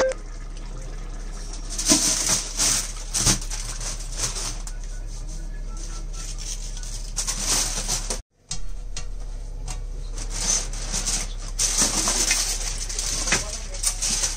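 Aluminium foil crinkling and rustling in irregular bursts as it is handled and peeled off a large cooking pot.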